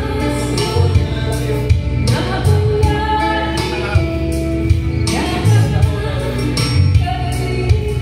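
A woman singing held notes into a microphone over backing music with a steady bass beat.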